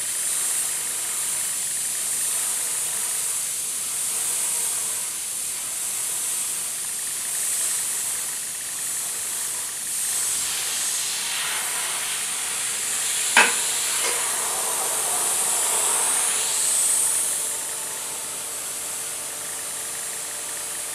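Badger Renegade Velocity airbrush hissing steadily as compressed air sprays black paint, the hiss swelling and easing a few times. One brief click about thirteen seconds in.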